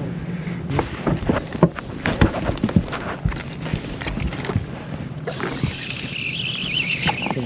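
Wind and water noise around a small fishing boat, with scattered clicks and knocks of gear handling, and a high wavering buzz over the last two seconds.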